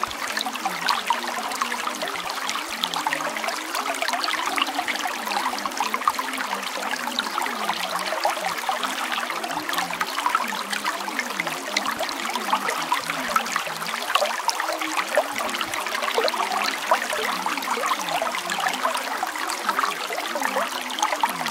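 Steady trickling, running water: a continuous wash flecked with many small splashes, with a low wavering undertone beneath it.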